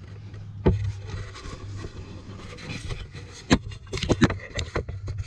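Handling noise from a camera being moved and wedged into a truck's engine bay: a knock about a second in, then a quick run of sharp knocks and scrapes near the end as it bumps against engine parts, over a steady low hum.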